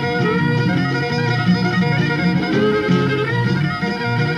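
Instrumental opening theme music in a folk style, played on bowed and plucked string instruments.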